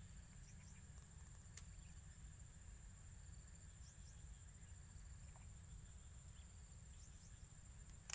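Near silence: a faint, steady, high-pitched insect drone over a low wind rumble, with a faint click about a second and a half in.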